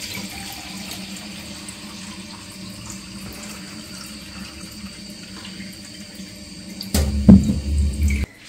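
Kitchen tap running steadily into a stainless steel sink. About seven seconds in there is a loud bump, and the sound cuts off just before the end.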